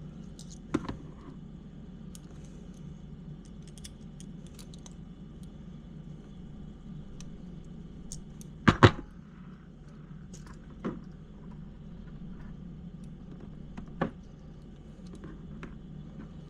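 Small plastic clicks and knocks as a TRX-4M transmission is pushed and worked into its skid and chassis. A few are sharper, the loudest a double knock about nine seconds in, over a steady low hum.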